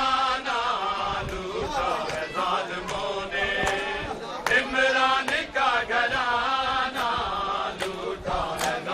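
A crowd of men chanting together in wavering melodic lines. Sharp smacks come at a steady beat, about one every three-quarters of a second, through the second half.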